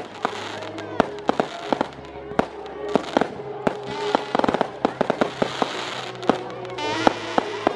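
Fireworks display: aerial shells and firecrackers going off in an irregular series of sharp bangs and pops, with a dense run of crackling about seven seconds in.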